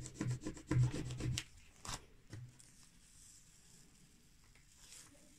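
A plastic card rubbed hard back and forth over vinyl transfer tape on a rough wooden board, burnishing the lettering down, in quick strokes about seven a second. The rubbing stops about one and a half seconds in, followed by two short scrapes and then only faint sound.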